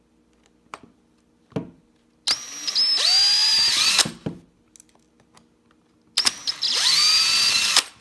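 Small power screwdriver backing out two Phillips screws, one after the other. Each run lasts under two seconds, its motor whine rising in pitch as it spins up, with a few light clicks from the bit being set on the screws before them.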